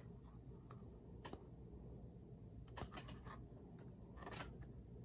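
Near silence: room tone with a handful of faint, short clicks and rustles from a hardcover picture book being held in the hands.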